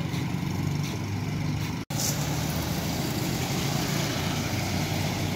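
Diesel locomotive engine idling with a steady low hum, broken off for an instant about two seconds in.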